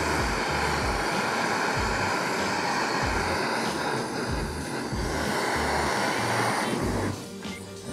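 Butane kitchen torch flame hissing steadily as it chars onion and carrot in a frying pan. The sound drops away briefly near the end. Background music with a steady low beat plays throughout.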